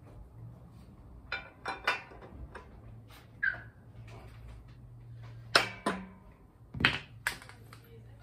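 Scattered metallic clicks and knocks of hand tools as a long holding bar and wrench are set on a camshaft sprocket nut to loosen it, five or so sharp knocks spread out, over a low steady hum.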